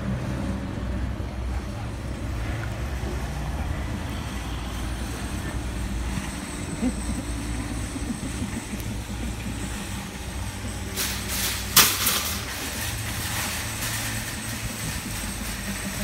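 Steady low rumble of vehicles in a parking lot, with a brief hissing burst and one sharp click near the end.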